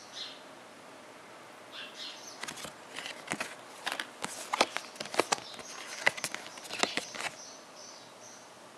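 Stiff printed cards being handled and leafed through by hand, a quick run of light clicks and taps starting about two seconds in and stopping about seven seconds in.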